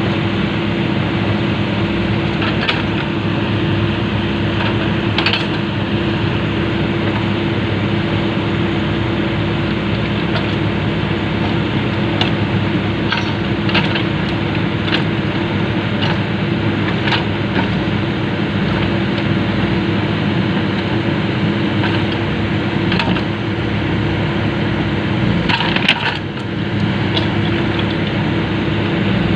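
A Komatsu PC200 excavator's diesel engine running steadily, with scattered sharp knocks and clanks from the steel track being fitted. The knocks bunch up a little before the middle and again near the end.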